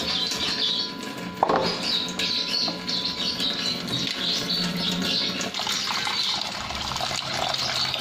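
Soaked chickpeas and wheat grains being rubbed by hand in water in a plastic bowl, then the water poured off into a stainless-steel sink and the tap running into the bowl, with small cage birds chirping in the background.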